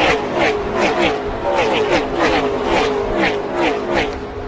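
NASCAR Gen 6 V8 stock car engines at racing speed, their note dropping in pitch again and again, about twice a second, as cars go by in quick succession.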